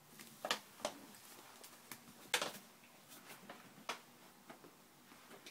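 Faint scattered crinkling and rustling of a plastic sugar bag handled by a small child, with a few sharper crackles about half a second in and around two and a half seconds in.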